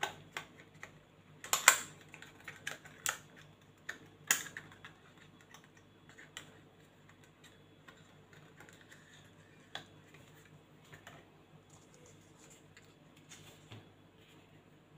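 Small plastic-and-card package for an airsoft hop-up rubber being opened by hand: a quick run of sharp plastic clicks and crackles, busiest in the first few seconds, then only scattered light ticks.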